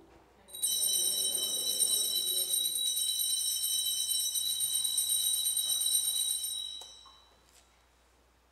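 Altar bells shaken continuously for about six seconds, then dying away: the ring that marks the elevation of the chalice at the consecration.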